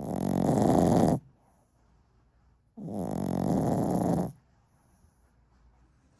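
A sleeping dog snoring: two long snores, each lasting over a second, about three seconds apart.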